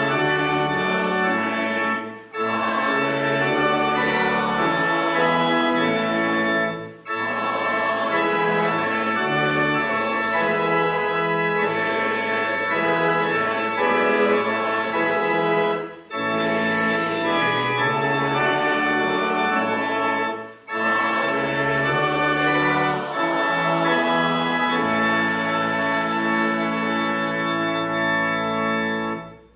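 Organ playing a piece in sustained chords, with short breaks between phrases, and the music stopping just before the end.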